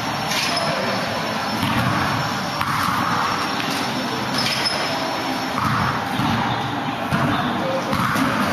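A basketball bouncing on the court floor a few times at irregular intervals, over a steady noisy hiss of the hall, with indistinct voices.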